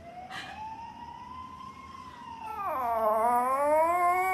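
Small poodle howling in long drawn-out notes: a quiet slowly rising note, then a dip about two and a half seconds in and a louder, held howl at the end.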